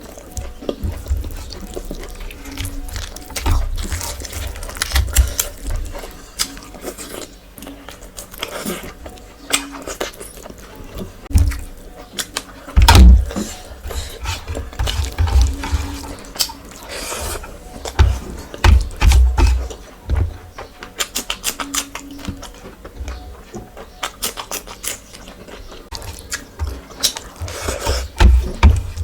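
Close-miked eating of spicy curry and rice: wet chewing, smacking and slurping, with irregular sharp clicks and low thumps.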